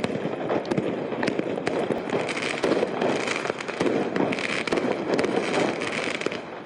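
Fireworks crackling: a rapid, irregular string of many sharp pops over a steady noisy din.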